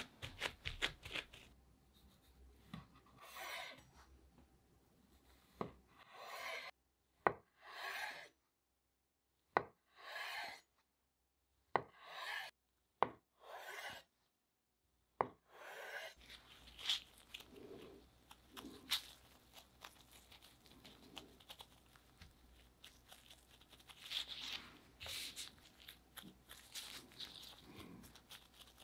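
Gloved hands rubbing and patting a mashed-potato dough log on a bamboo cutting board. A kitchen knife then slices through the soft dough about six times, each cut a short swish ending in a sharp tap of the blade on the board. After that come soft rustling and light taps as the gloved hands separate the triangular slices and set them on the board.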